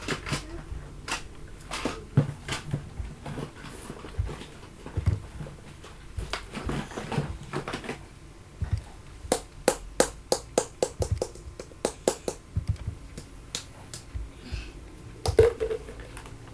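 A scattered series of sharp clicks, with a fast run of about three to four clicks a second in the middle and a louder knock near the end.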